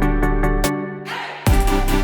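Electronic background music with a steady beat; about two-thirds of a second in the bass and beat drop out under a rising noise sweep, and they come back hard with a heavy hit about a second and a half in.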